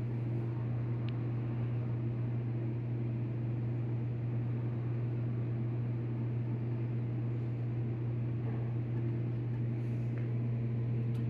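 Steady low mechanical hum with fainter higher overtones, unchanging in level and pitch, and a few light clicks right at the end.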